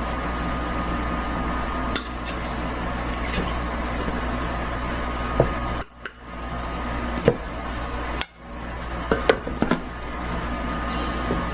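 Scattered light clinks and knocks of kitchen utensils against a mixing bowl, several in quick succession near the end, over a steady background hum.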